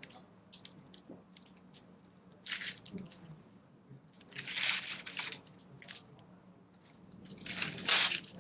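Whipped cream being piped from a plastic piping bag: three longer noisy squeezes, about two and a half, four and a half and eight seconds in, with faint clicks and rustles of the bag between them.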